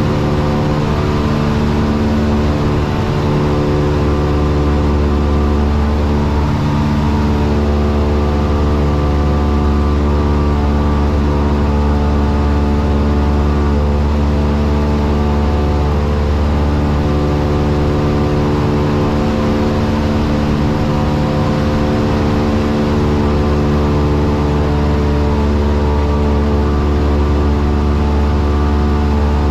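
A single-engine light aircraft's piston engine and propeller drone steadily in cruise, heard from inside the cockpit as a constant deep hum made of several steady tones.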